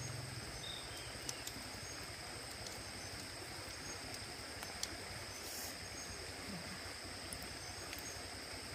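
Outdoor ambience of insects trilling steadily, with a few faint ticks. A low hum cuts off about half a second in.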